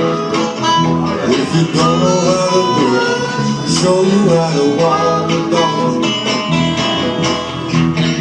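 Small band playing an Americana/R&B number with guitars to the fore, recorded live on a mobile phone so it sounds tinny.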